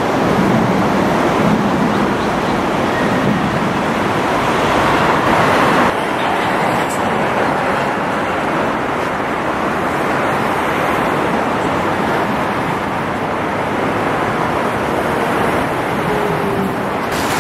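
Steady road traffic noise, a continuous rush of passing cars and trucks. Its sound changes abruptly about six seconds in, losing much of its high hiss.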